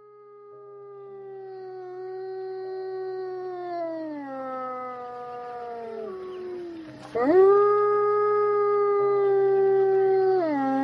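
A wolf howling. A long, drawn-out howl fades in and slides slowly down in pitch, then a second howl about seven seconds in sweeps sharply up, holds steady and drops again near the end. A faint low steady hum sits underneath.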